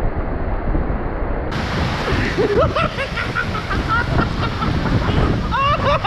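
Waterfall up close: a steady rush of falling water and spray, with wind buffeting the microphone. Voices come in over it from about two and a half seconds in.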